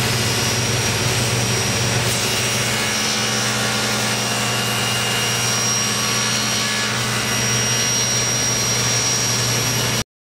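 Table saw running steadily under a light cut as the miter sled carries its half-inch MDF base and wooden fence through the blade, cutting the sled's final slot. The sound stops abruptly near the end.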